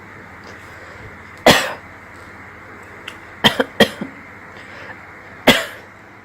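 A person coughing four times: one cough, then two quick coughs close together about two seconds later, then one more near the end.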